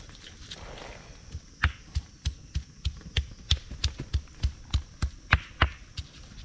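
A hand-held stone pounding green chillies on a flat stone slab: a regular run of dull knocks, about three a second, starting about a second and a half in.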